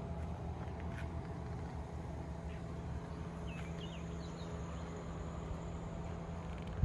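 Steady low hum of outdoor background noise, with a few faint chirps about three and a half seconds in.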